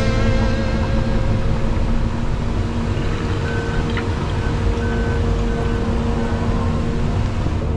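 Case 210 tracked excavator's diesel engine running steadily under load while it loads a pile of dirt. About halfway through there is a run of short, high beeps.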